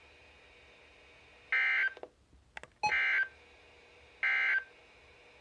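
Three short bursts of EAS/SAME digital data tones, a warbling mix of two pitches, from a NOAA Weather Radio broadcast, about a second apart. This is the end-of-message code that closes the flood warning. A few faint clicks fall between the first two bursts.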